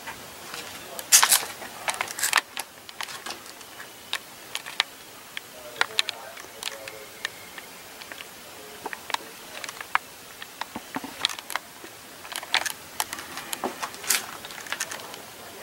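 Handling noise from a handheld camera: scattered, irregular sharp clicks and knocks, louder in clusters about a second in and near the end, with faint murmured voices in between.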